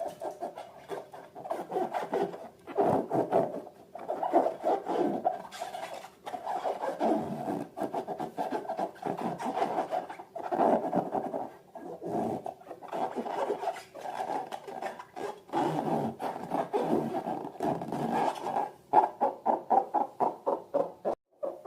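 Rubber balloons squeaking as they are rubbed and squeezed, in uneven bursts, with a fast run of short squeaks near the end.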